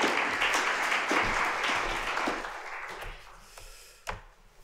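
Audience applauding, dying away about three seconds in, followed by a single light knock near the end.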